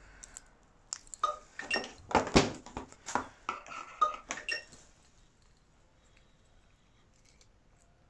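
A run of sharp clicks and light clinks, like small hard parts being handled, for about four seconds, then it falls to near silence.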